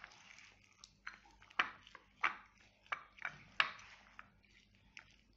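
A spoon clinking against a small bowl while stirring a thick cream-cheese filling with chopped nuts and honey: about eight irregular sharp taps, with soft stirring between.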